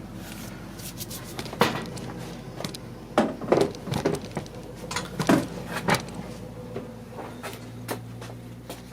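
Air filter box clips being unsnapped and the plastic housing handled: a series of sharp, separate clicks and knocks, over a steady low hum.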